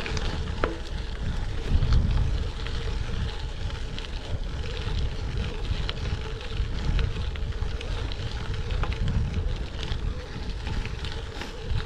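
Gravel bike riding on a dirt road: wind buffeting the action-camera microphone over the steady rolling noise of gravel tyres, with scattered clicks and rattles from the bike.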